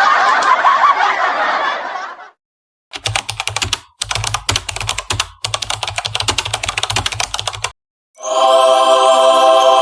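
Sound effects played back to back: the tail of a laughing voice fading out, then rapid computer-keyboard typing in three runs lasting about five seconds, then a steady buzzing held tone starting near the end.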